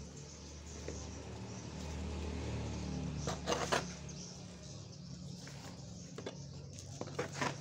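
Dry bamboo leaves and potting mix rustling and crunching as they are handled, in two short bursts about three and a half seconds in and again near the end, over a low steady hum.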